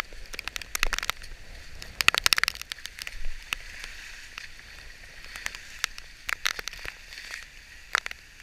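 Rain ticking and crackling in sharp clicks on the camera housing, thickest about a second in and around two seconds in, with wet leaves rustling and water splashing as a clogged storm-drain grate is cleared by hand.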